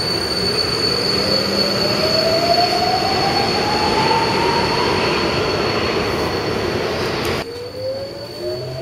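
Budapest M4 metro train (Alstom Metropolis) pulling away from the platform: the traction-motor whine rises steadily in pitch as it accelerates, over wheel and rail rumble and a steady high whistle. About seven seconds in the sound changes abruptly to the inside of a car, where the motor whine starts rising again as the train gets under way.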